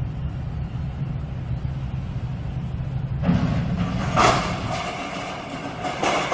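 Deep steady rumble of a large cruise ship manoeuvring against a floating dock. About three seconds in, a louder, rougher noise joins it, with a sharp peak a second later.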